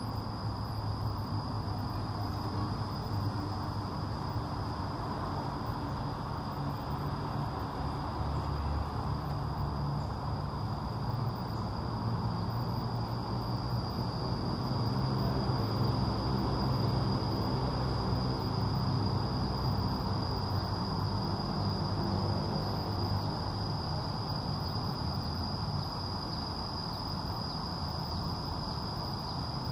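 Insects buzzing steadily in one unbroken high-pitched tone from the park's trees, over a continuous low rumble that swells slightly in the middle.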